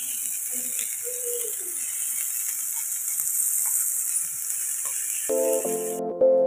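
Small puthi fish shallow-frying in a pan, the oil sizzling with a steady hiss. Keyboard music comes in near the end, and the sizzle cuts off suddenly just after.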